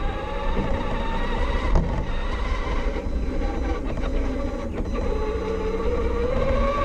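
Electric motor and drivetrain whine of a Losi 22S SCT short course RC truck, rising and falling in pitch with the throttle, over the rumble of its tyres on pavement, picked up by a camera mounted on the truck's body.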